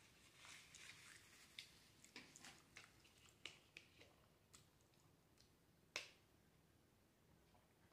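Faint, wet mouth clicks and smacks of someone chewing food, a quick run of them over the first few seconds, then one sharper click about six seconds in.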